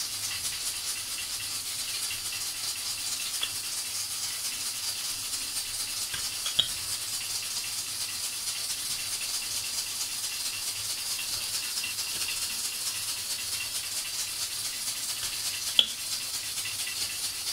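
Wooden rolling pin rolling chapati dough back and forth on a floured granite counter: a steady rattling rustle over a constant hiss, with two sharp taps, one about six and a half seconds in and one near the end.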